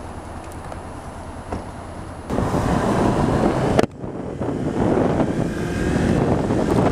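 Motorcycle riding noise heard through a helmet-mounted mic: wind buffeting the microphone over engine and road noise. It turns abruptly louder about two seconds in, drops sharply for an instant near four seconds, then stays loud.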